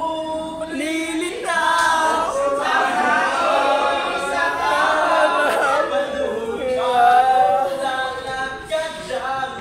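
A man singing a cappella, with no accompaniment, holding long sustained notes and sliding between them.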